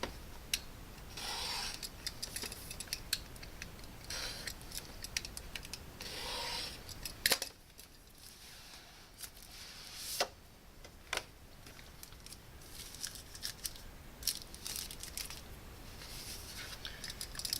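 A product box being handled and opened by hand: packaging rubbing and sliding in several short stretches, with scattered clicks and taps and a couple of sharper clicks about seven and ten seconds in.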